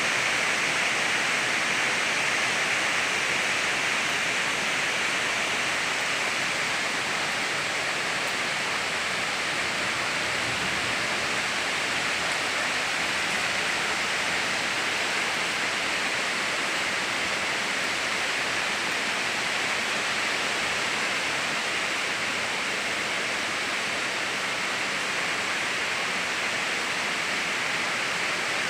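Steady rush of rainwater pouring and splashing into a pond, even and unbroken.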